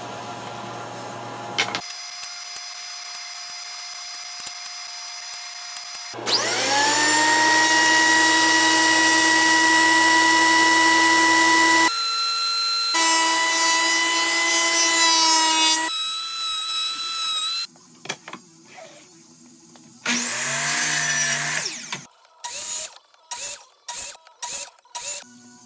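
Woodworking power tools running in quick succession, with abrupt changes between them: a table saw, a benchtop thickness planer, then a miter saw. A motor spins up about six seconds in and runs steadily, the loudest stretch. Near the end come a string of short bursts.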